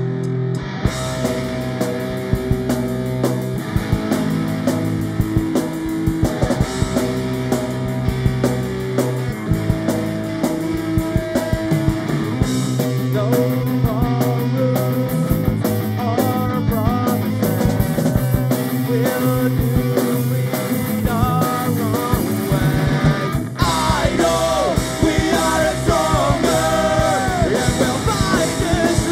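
Rock band playing live: electric guitars, bass and drums with steady cymbal and drum hits under sustained chords. A wavering lead line with bent notes comes in about halfway through, and again near the end.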